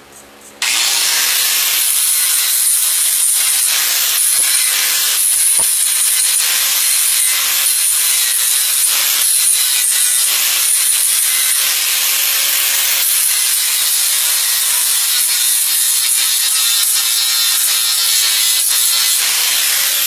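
Small handheld grinder starting up about half a second in and then running steadily against a stamped aluminum sheet, a loud, even, high-pitched rushing noise. It is grinding a few rough spots smooth to prepare the metal for paint.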